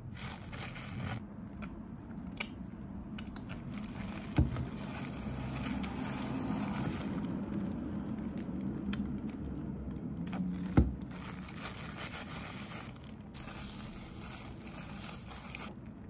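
Loose disposable plastic gloves crinkling and rustling as gloved hands handle a hair-dye applicator bottle, with two sharp knocks, about four and eleven seconds in.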